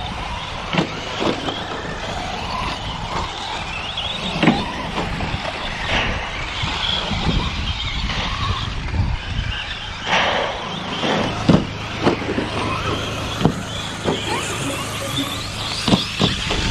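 Electric RC short-course trucks racing on a dirt off-road track: brushless motors whining up and down in pitch, tyres on dirt, and repeated sharp knocks from landings and impacts.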